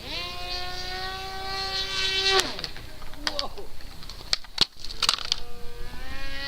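Electric RC plane motor whining as it spins up to a steady high pitch, then cutting out about two and a half seconds in with a falling pitch. A series of sharp clicks and knocks follows, and the motor spins up again near the end.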